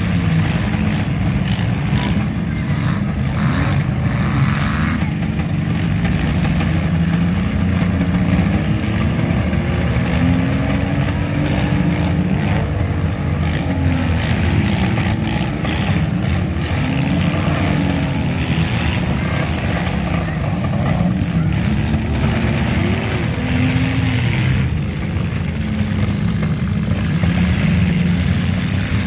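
Engines of several stock compact cars in a demolition derby running and revving, their pitch rising and falling again and again over a steady low rumble.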